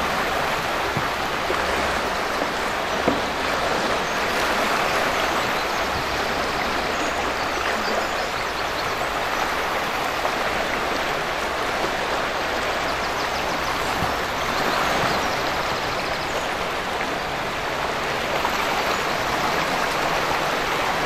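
Fast river water rushing steadily through a whitewater slalom course, with a single brief knock about three seconds in.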